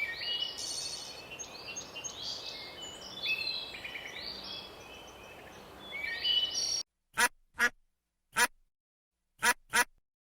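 Many birds calling at once, short pitched calls overlapping on a hiss, cutting off suddenly about seven seconds in. Then a duck quacks five times, short separate quacks with silence between them.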